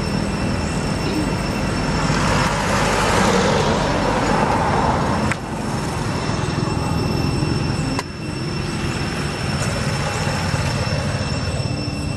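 Road traffic noise: a steady low rumble and hiss, with a vehicle passing that swells and fades between about two and five seconds, over a thin, steady high-pitched whine. The sound breaks off abruptly twice, near the middle.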